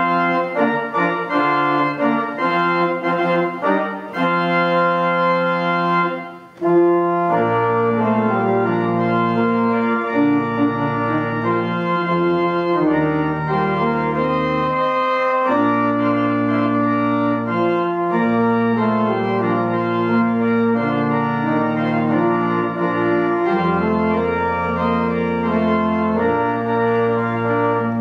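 Organ postlude: sustained chords played on a two-keyboard organ. After a brief break about six seconds in, deep bass notes join beneath the chords.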